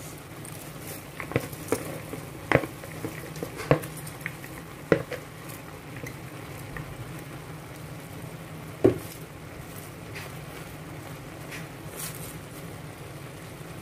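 Pancit canton noodles frying in a pan with a soft steady sizzle and a low hum, broken by scattered sharp knocks and taps as shredded cabbage is tipped in and a wooden spatula works through it. The loudest knock comes about nine seconds in.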